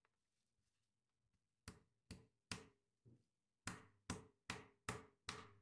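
Meat mallet pounding a chicken breast through plastic wrap on a wooden cutting board. There are a few spaced blows at first, then a steady run of blows at about two or three a second.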